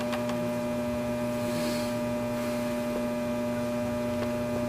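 Steady electrical mains hum on the recording, with a few faint ticks just after the start.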